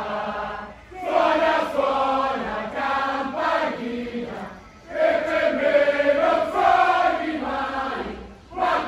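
A crowd of contrada supporters singing a chant together in unison as they march, in three phrases with short breaks between them.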